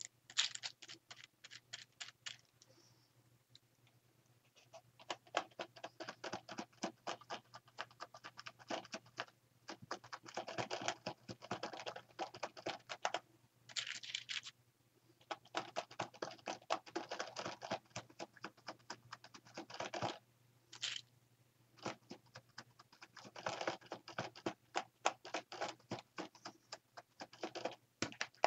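Paint being dabbed through a stencil onto a paper page with a crumpled dabber: quick light taps, several a second, in bursts of a few seconds with short pauses between.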